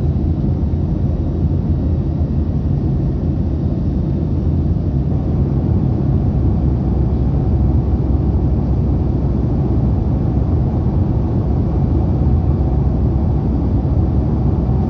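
Boeing 757-200 cabin noise: a steady low rumble of the jet engines and rushing air, heard from inside the passenger cabin in flight.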